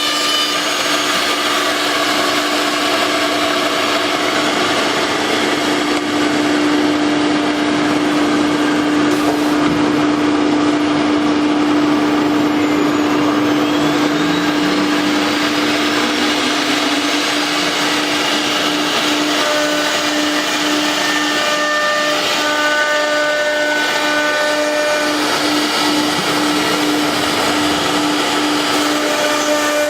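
CNC router machining wood: a steady motor hum over a continuous cutting and extraction noise, with a faint rising whine around the middle.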